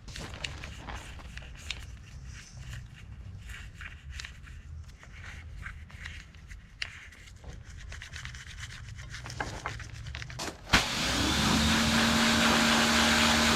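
Irregular scrubbing and scraping while a dirty brake caliper is cleaned, then about eleven seconds in a loud steady spray hiss with a motor hum starts suddenly and runs on: pressurised spray washing the dirt out of the caliper.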